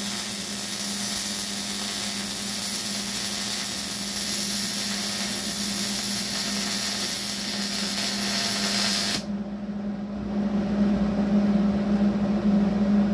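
MIG welder arc sizzling and crackling steadily for about nine seconds, then cutting off suddenly as the trigger is released. A steady machine hum continues underneath and gets a little louder near the end.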